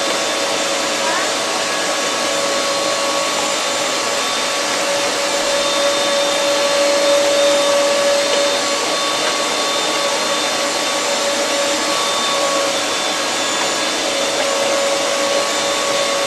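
Arçelik K 1766 1400 W electric meat grinder running steadily under load, its motor giving a constant whine while meat is pushed down the feed tube and minced through the plate.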